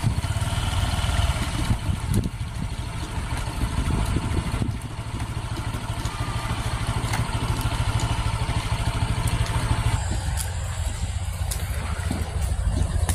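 A small engine running steadily at low speed, a continuous low rumble with light clicks over it; the rumble thins out around ten seconds in.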